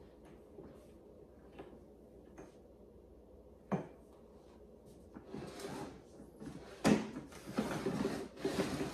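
Handling noises from assembling a Sun Joe electric lawn mower by hand: a sharp plastic click a little under four seconds in and a louder knock about seven seconds in, with stretches of rustling around them.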